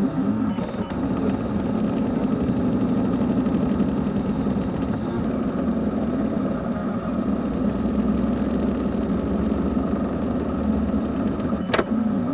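Vacuum cleaner motor running steadily, with a sharp click near the end.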